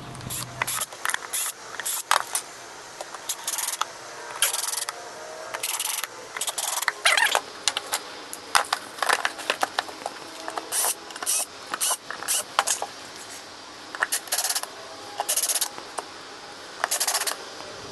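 Irregular short clicks, rattles and brief hissy bursts of hand work on golf cart tail light wiring and fittings, with tools and parts being handled.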